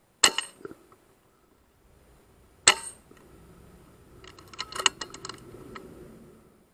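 Two sharp shots from a .177 FX Wildcat Mk III Compact air rifle, about two and a half seconds apart. A quick run of lighter clicks and rattles follows in the second half.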